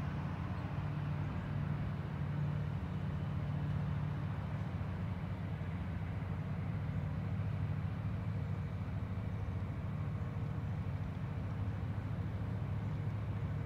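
A steady, unbroken low engine drone with a light hiss above it.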